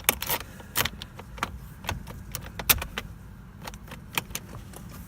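Metal key and key ring jangling, with irregular sharp metallic clicks as the key is worked and twisted in the Mazda's lock.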